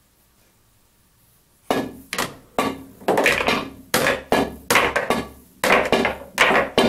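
Pool balls clacking in quick succession as a row of balls is shot one after another in the 'machine gun' drill: cue hits, ball-on-ball clicks and balls dropping into the pocket, about two a second, starting a little under two seconds in.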